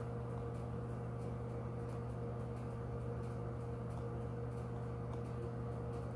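Steady low electrical hum with an even hiss, like a fan or other mains-powered appliance running, with faint scattered ticks.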